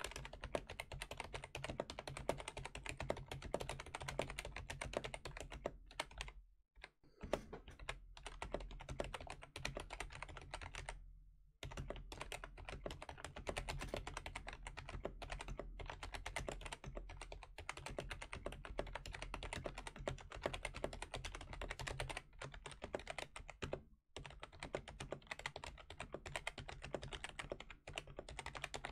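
Continuous fast typing on a Logitech G213 Prodigy membrane keyboard: a dense run of key presses with slight noise, broken by a few brief pauses.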